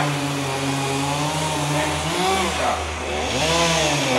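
Two-stroke chainsaw idling, its pitch swooping up and back down twice around the middle as the throttle is blipped.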